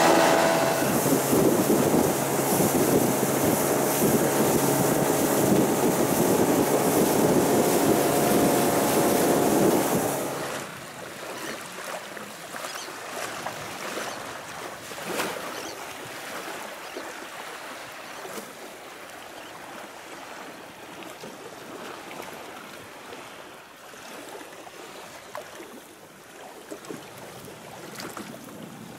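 Small boat under way on its 20-horsepower outboard, with loud wind and water rushing past for about the first ten seconds. The level then drops sharply to quieter wind and water lapping, with occasional small slaps.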